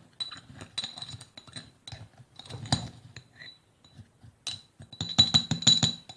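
Small metal spoon stirring chopped onion and sugar in a glass jar, clinking against the glass with a ringing chime. The clinks are scattered at first, then a quick run of them comes about five seconds in.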